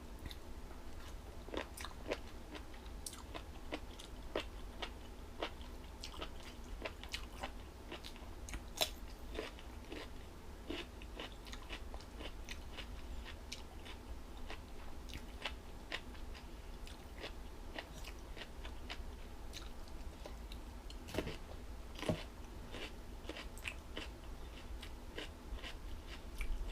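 Close-up chewing of crunchy, springy jellyfish salad: irregular crisp crunches and wet mouth clicks, with a few louder crunches about nine seconds in and again around twenty-one and twenty-two seconds, over a steady low hum.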